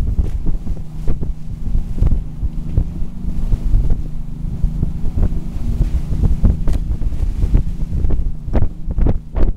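Wind buffeting the microphone, gusting unevenly over the steady run of a Grand Banks 49 trawler's engines and the rush of its wake water.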